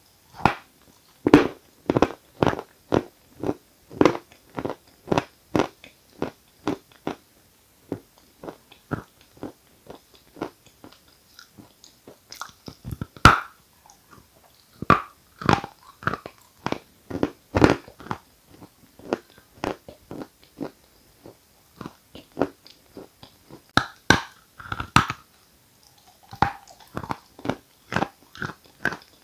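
Close-miked biting and chewing of hard white edible chalk of the 'Giant' variety: a run of sharp crunches as pieces snap off under the teeth, with quieter chewing between.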